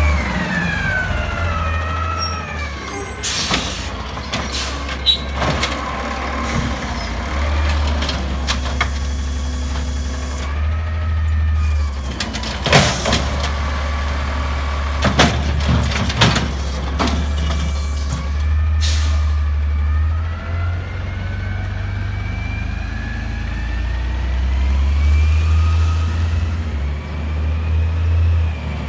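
Freightliner M2 garbage truck with an Amrep automated side-loader body, its natural-gas engine running and revving up and down while the hydraulic arm works, with a whine rising and falling. Several loud bangs and clatters come from about three seconds in to about two-thirds through, the loudest in the middle, as the arm lifts, shakes and sets down a cart and the lids slam.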